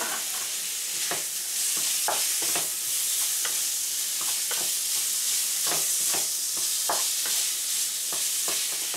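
Minced chicken sizzling in a frying pan with onions and carrot, with a steady hiss. A wooden spatula breaks up and stirs the meat, making irregular scrapes and knocks against the pan.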